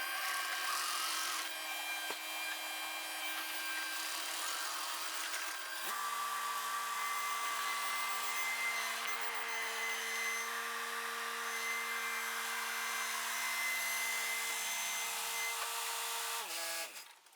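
A machine running with a steady whine and hum. Its tones shift about six seconds in, then fall away and stop near the end as it winds down.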